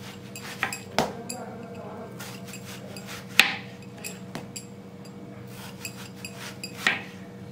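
Kitchen knife slicing watermelon into thin rounds on a wooden cutting board, the blade clicking and knocking against the board. There are light clicks throughout and sharper knocks about a second in, about three and a half seconds in and near the end, over a steady low hum.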